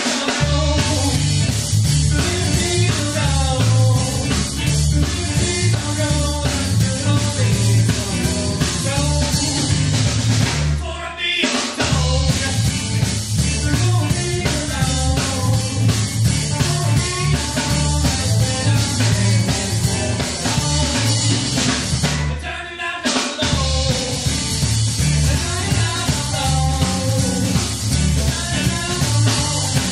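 Blues-rock band playing live in a small room: two electric guitars, electric bass and a drum kit driving a steady riff. The band drops out for two brief breaks, about eleven and twenty-three seconds in, then comes straight back in.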